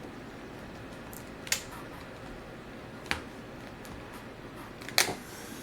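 Three sharp plastic clicks, spaced a second or two apart, the last the loudest, as a flat-tip screwdriver pries a laptop's plastic screen bezel loose from its clips.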